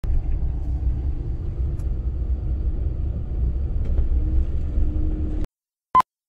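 Steady low rumble of a van's cabin while driving on beach sand, which cuts off suddenly near the end, followed by one short beep of a film-countdown leader.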